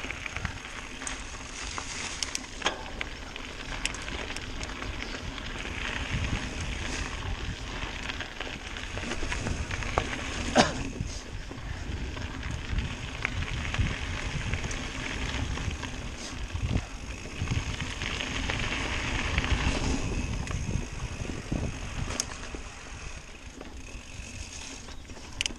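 Mountain bike riding along a dirt singletrack: a continuous crunch and rumble of tyres on the trail, with scattered sharp knocks and rattles as the bike goes over bumps.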